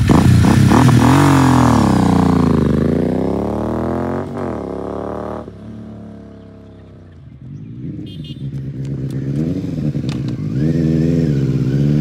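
Royal Enfield Continental GT 650 parallel-twin blipping its throttle a few times, then accelerating away with pitch rising through the gears and dropping sharply about five seconds in, fading into the distance. From the middle on, another motorcycle comes closer with wavering revs and gets louder.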